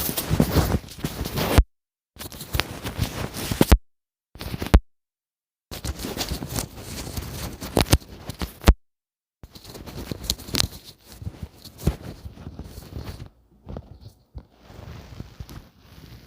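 Close, loud rustling and scraping of clothing and body rubbing against a microphone tucked under the lower back during stretching, with several sharp clicks scattered through it. The sound cuts out completely a few times.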